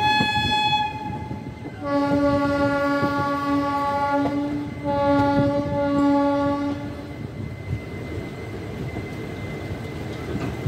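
Locomotive horn sounding from a moving train: a short high-pitched blast, then two long lower blasts, over the steady rumble of the running coaches.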